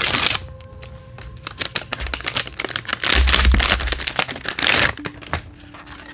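Crinkling and tearing of a plastic toy blister bag being ripped open by hand, a dense run of sharp crackles and clicks that is loudest near the start and again from about two to five seconds in. Near the end the stiff clear plastic tray inside is handled.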